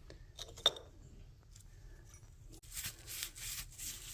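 A sharp click about half a second in, then a wet rag scrubbing Bar Keepers Friend cleanser over a metal window latch: a rhythmic rubbing that starts about halfway through.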